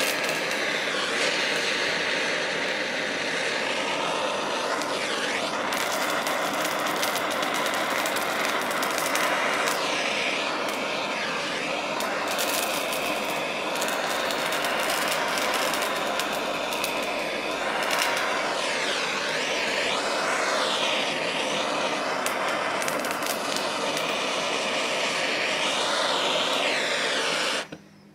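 Handheld gas torch burning steadily with a blue flame held against a bell pepper, charring its skin; the flame's rushing hiss shifts a little in tone as it moves over the pepper, with light crackles. It shuts off suddenly near the end.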